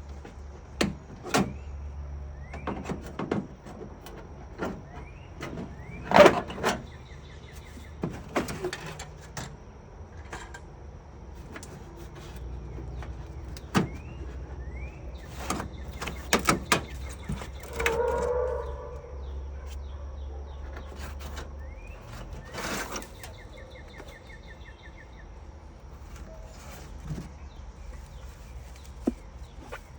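Hand tools working on house siding: irregular knocks, taps and occasional short squeaks and scrapes as the corner trim and its nails are pried and pulled out. The loudest knock comes about six seconds in.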